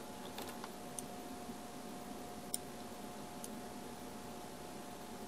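A few faint, sharp computer mouse clicks, the one about two and a half seconds in the loudest, over a steady low hum.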